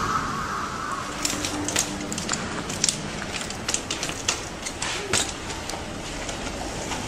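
Trials bicycle being hopped and ridden: a run of irregular sharp clicks and light knocks over steady outdoor background noise, thickest between about one and five and a half seconds in.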